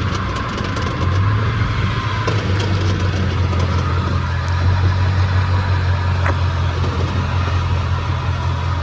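Chevrolet truck running with a steady low hum from the drivetrain, which the owner suspects is a bad 10-bolt rear differential.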